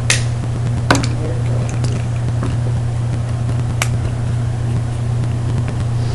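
Steady low hum, with a few sharp clicks: one right at the start, one about a second in and one near four seconds.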